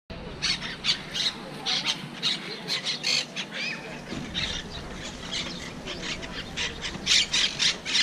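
Monk parakeets squawking: a rapid, unbroken run of short, shrill calls, several a second, getting louder near the end.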